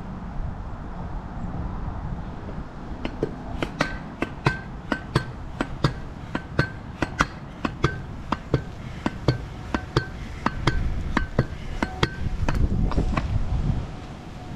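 Vurtego V3 air-spring pogo stick bouncing on pavement: a sharp, ringing metallic clink with each landing, about two a second, starting about three seconds in and stopping a couple of seconds before the end. Gusty wind rumbles on the microphone underneath.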